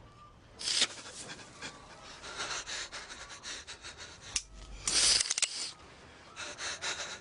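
A person breathing heavily in ragged, uneven gasps, several loud breaths coming in irregular bursts.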